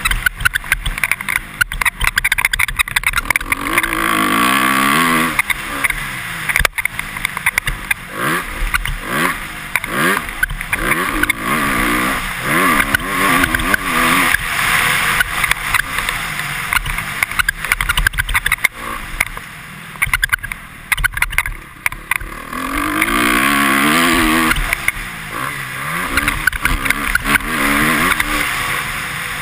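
Honda CRF250R's single-cylinder four-stroke engine being ridden hard on a motocross track, its pitch rising and falling over and over as the rider revs through the gears. Short sharp knocks come throughout as the bike hits bumps.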